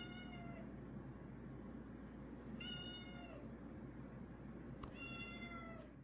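Three faint, high-pitched drawn-out cries, evenly spaced about two and a half seconds apart, each just under a second long and dropping in pitch at the end, over a steady low hum.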